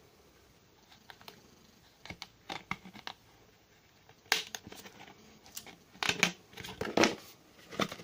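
Utility knife cutting a hole in a thin plastic cookie box, heard as irregular short scratching, crackling strokes with pauses between them. The strongest come about halfway through and in a run near the end.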